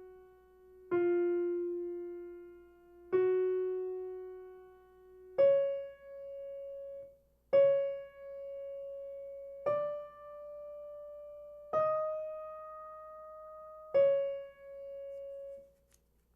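Piano playing a choral soprano part alone as a slow single-note line: one note struck about every two seconds and left to ring and fade, lower at first and stepping up to a higher group about five seconds in, the last note dying away near the end.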